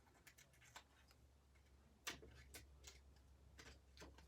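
Faint, scattered light clicks and taps from paper card pieces and adhesive being handled on a desk, about eight in all, the sharpest about two seconds in, over a steady low hum.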